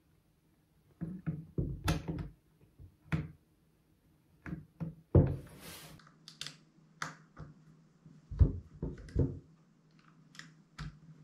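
Irregular clicks, taps and light knocks of hands fitting a crossbow's quiver mount onto its Picatinny rail and working its small screws, starting about a second in.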